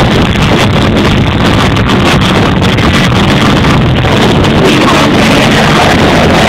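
Loud live concert music, heard through an overloaded phone microphone as a steady, smeared wall of sound.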